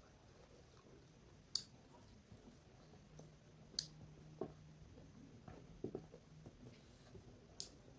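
Quiet eating: a few sharp clicks and soft knocks, spread through a near-silent stretch.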